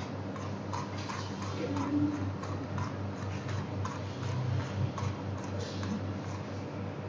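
Computer mouse scroll wheel clicking in quick irregular runs, over a steady low electrical hum.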